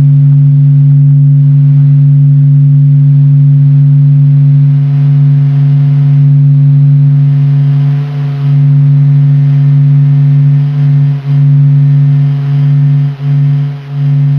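The "sound of the Sun", a sonification of spacecraft data converted into sound: a loud, steady deep hum with a fainter higher tone above it, dipping briefly a few times in the second half.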